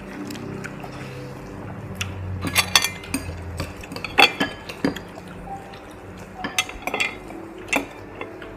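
Scattered clinks of metal utensils against bowls and pots at a meal, several sharp knocks coming irregularly from about two seconds in.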